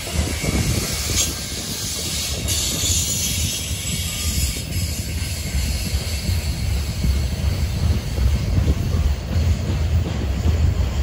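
Norfolk Southern freight train rolling past: a steady low rumble of cars on the rails, with a hiss that is strongest in the first few seconds.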